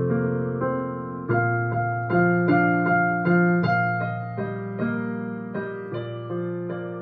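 Closing vignette music on a keyboard: a slow melody of struck notes over chords, each note fading after it is played, gradually growing quieter.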